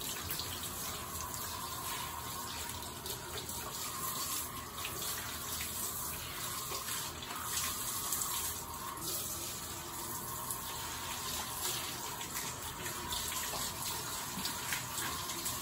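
Water running steadily from a handheld shower head, spraying onto a small dog's wet coat and splashing on the tiled floor as the dog is rinsed.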